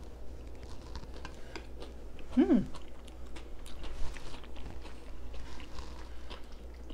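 Close-miked chewing of a mouthful of lettuce-topped ground-beef casserole: many small wet mouth clicks and soft crunches. There is a short hummed sound about two and a half seconds in.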